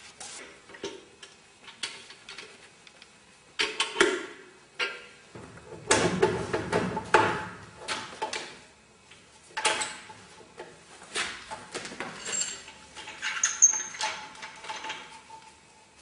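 Irregular clicks, knocks and clatter of hard objects being handled, with a longer, fuller rattle about six seconds in; no motor running.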